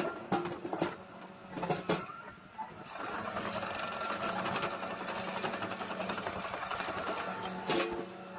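Excavator engine running steadily, with several sharp knocks in the first two seconds and another near the end, as of rock and bucket striking. From about three seconds in the running grows denser and rougher.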